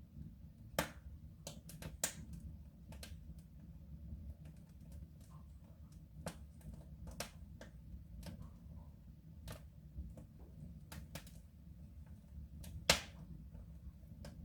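Fire crackling in a soapstone stove: irregular pops and snaps, the loudest about a second in, about two seconds in and near the end, over a low steady rumble.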